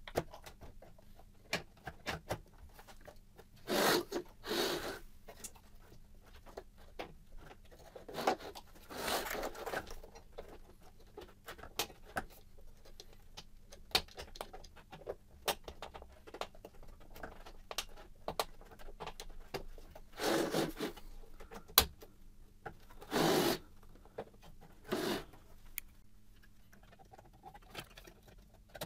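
Plastic parts of a BMW E46 ZKW headlight being handled and fitted together: scattered light clicks and taps, with several short scraping rubs of plastic on plastic, the longest about nine seconds in.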